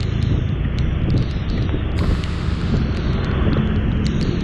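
Wind buffeting the action camera's microphone on a moving automatic scooter, with the scooter's engine humming steadily underneath and a few faint ticks.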